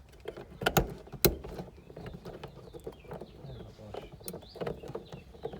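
Sharp plastic clicks, the two loudest about a second in, then lighter clicks and rustling: small plastic trim clips being handled.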